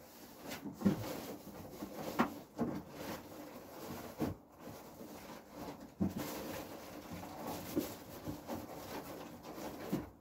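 Model railway track pieces and parts being handled and rummaged through on a hard surface: irregular knocks, clicks and rustling, the loudest knocks about one and two seconds in.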